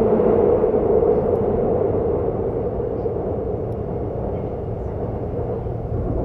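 Seoul subway train running: a steady rumble with a humming tone that fades out over the first two seconds as the overall level eases slightly.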